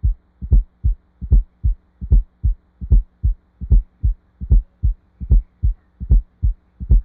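Recorded heart sounds with an S4 gallop: three low thuds to each beat, about 75 beats a minute, the S4 falling just before S1 and followed by S2. The S4 is the sign of blood striking a stiff, hypertrophied ventricle during late filling. A faint steady hum runs underneath.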